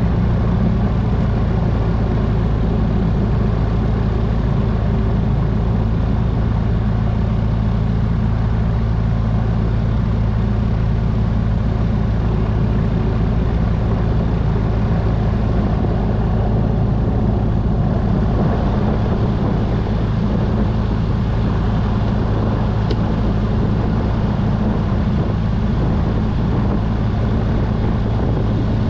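Gyrocopter's piston engine running steadily on the ground while taxiing, an even hum with no change in pitch.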